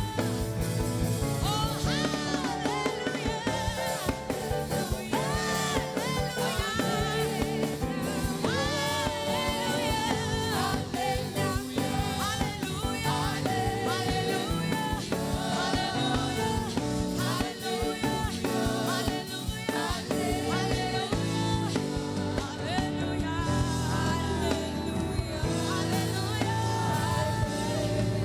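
Live gospel worship song: voices singing over a steady band accompaniment with bass.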